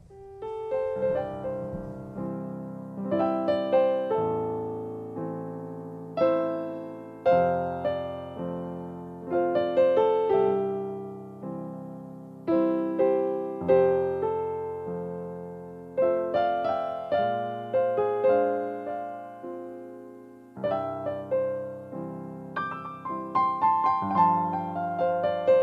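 Solo piano postlude: slow chords and melody notes struck about every second, each ringing and dying away before the next.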